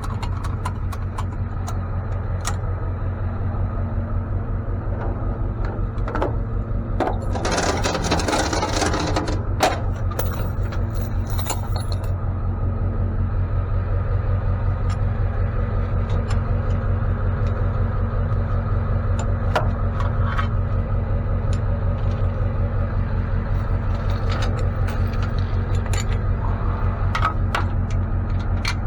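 Tow truck's engine idling steadily, with scattered light metallic clinks and scrapes. A loud hiss lasts a few seconds about seven seconds in and stops abruptly about twelve seconds in.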